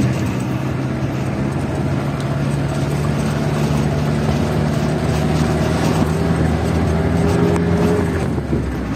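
Vehicle engine running steadily as the vehicle drives, a low drone with road noise over it; the engine note eases off shortly before the end.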